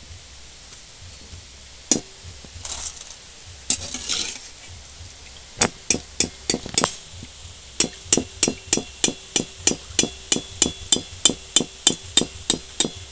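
Perforated steel skimmer knocked against the rim of a metal wok to shake the oil off fried chana dal: a few scattered clinks, then a steady run of about four metallic knocks a second, each with a short ring. About four seconds in, a brief rustle of fried dal tipped into a steel bowl.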